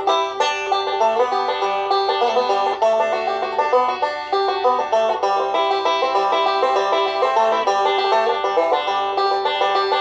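Background music: an up-tempo, banjo-led country tune of quick plucked notes, playing steadily.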